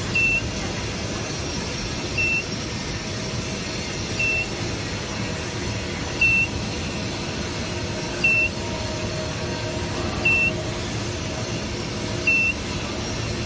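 Short, high electronic beep repeating about every two seconds, over a steady machine hum.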